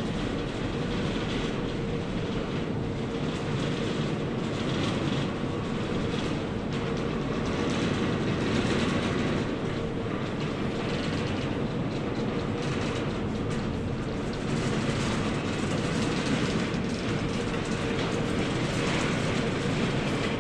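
Skier conveyor belt running through the Peruvian Tunnel, a steady mechanical rumble with a faint constant hum.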